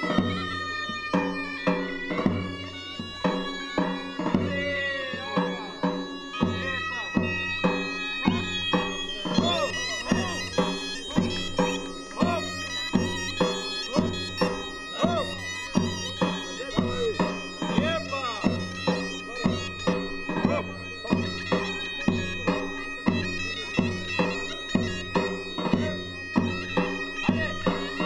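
Bulgarian folk dance music: shrill reed pipes play a melody over a steady drone, with a large double-headed drum beating about three strokes every two seconds.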